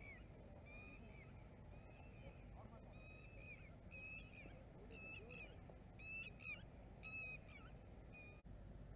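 A bird calling repeatedly in the background: about ten short, high, clear calls, roughly one a second, some in quick pairs, faint against the open-air background.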